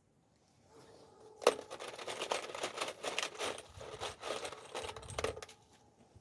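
Rapid clattering and jingling of small hard objects, opening with a sharp clack about a second and a half in and stopping about a second before the end.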